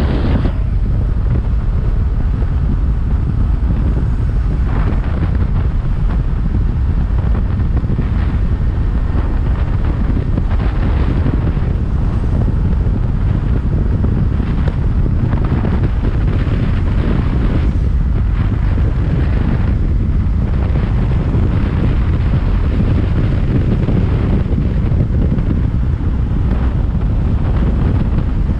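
Loud, steady wind buffeting on the microphone, a dense low rumble without pause.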